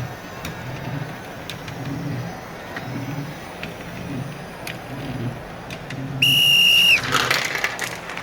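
Referee's whistle: one steady, shrill blast of just under a second about six seconds in, over a background of crowd-like noise, with a rush of noise right after it.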